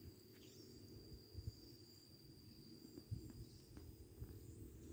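Near silence: a faint low rumble with a few soft thumps, and a faint steady high-pitched tone throughout.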